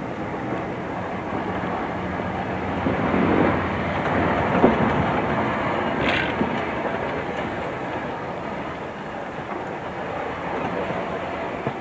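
Vintage tramcar running past on its rails: a steady rolling and rumbling that grows loudest as it passes, about three to five seconds in, with a brief high-pitched sound about six seconds in.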